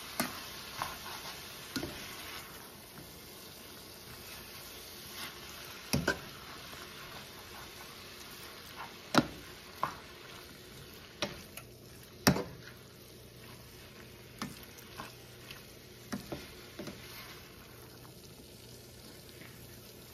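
Thin-sliced beef and onions frying in a stainless steel skillet, sizzling steadily as they are stirred with a spoon. Sharp knocks of the spoon against the pan come at irregular moments, a dozen or so.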